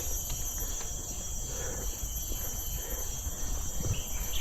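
Steady, high-pitched drone of tropical insects, with a low rumble underneath.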